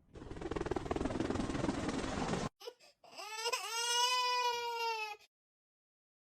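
A steady rushing noise for about two and a half seconds, then a cat's long drawn-out yowl that rises at first and then holds for about two seconds.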